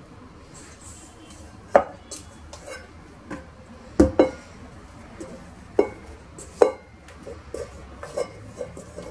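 Stainless steel mixing bowl knocking against a granite countertop as dough is pulled out of it: a handful of separate clunks, each with a short metallic ring, the loudest two close together about four seconds in.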